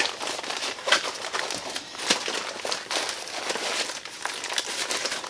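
Plastic packaging rustling and crinkling, with small clicks and knocks, as the parts of a new angle grinder are unwrapped and handled.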